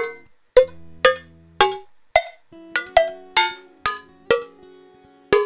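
Short Cuban hand-percussion samples played one after another, about two a second, each a different sharp hit of a different pitch, as the samples are auditioned in turn while searching for a conga sound.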